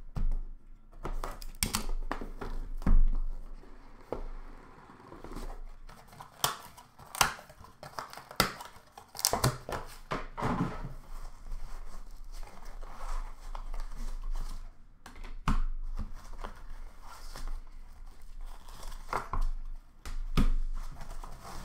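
A Leaf Superlative hockey card box being opened and unpacked by hand: irregular knocks and scrapes of the cardboard lid and foam insert, with plastic wrapping crinkling and tearing.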